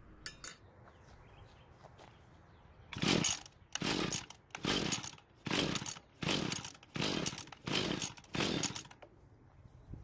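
Mantis tiller's small two-stroke engine cranked over by its recoil starter rope, eight quick pulls in a row starting about three seconds in, with the spark plug out for a compression test that reads about 130 PSI, a healthy engine.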